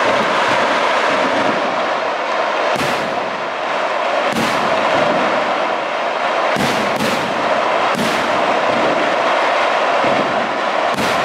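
Fireworks display: a continuous dense rushing, crackling noise, with about six sharp bangs of bursting shells every second or two, two of them close together past the middle.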